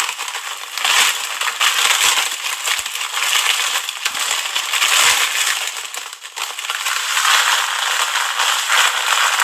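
Fine dry vermicelli (seviyan) pouring from a plastic packet into a wok: a dense, continuous crackling rustle that dips briefly about six seconds in.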